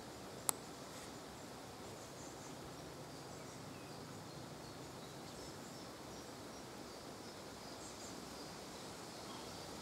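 Faint small-bird chirps, short high notes scattered over a steady background hiss, with one sharp click about half a second in.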